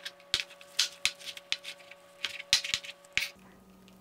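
Kitchen knife dicing tomatoes on a cutting board: about ten uneven chopping taps, stopping a little after three seconds in.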